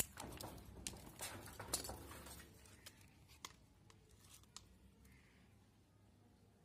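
A sharp snip as scissors cut through an eggplant's stem, followed by about two seconds of leaf rustling and light clicks as the cut fruit is handled, then a few faint ticks.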